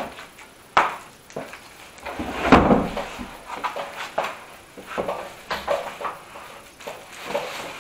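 Unpacking by hand: plastic wrapping and cardboard box flaps rustling, with scattered sharp knocks and a louder rustle about two and a half seconds in.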